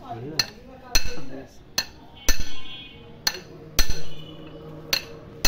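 Hammer blows on a steel bar held against the crankshaft end of a bare Mahindra tractor engine block, driving the part into place: about eight sharp metal strikes at uneven intervals, each with a brief ring, the hardest roughly every second and a half.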